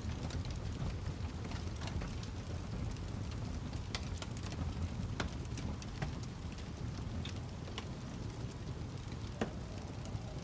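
Wood fire crackling: a steady low rumble of burning with scattered sharp pops and snaps, the loudest about nine seconds in.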